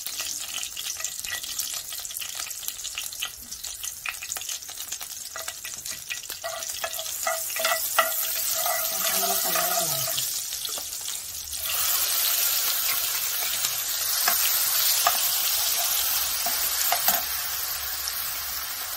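Cumin seeds sizzling in hot oil in a non-stick pan, with the clicks and scrapes of a metal slotted spoon stirring. About twelve seconds in, wet ground masala paste goes into the oil and the sizzle turns louder and hissier as it starts to fry.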